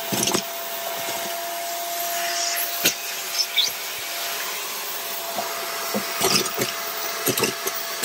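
BISSELL Pet Hair Eraser Turbo Rewind vacuum cleaner running steadily with a constant whine, sucking up small acrylic laser-cutter scraps. Scattered clicks and rattles come from the hard pieces being picked up, in clusters around the middle and near the end.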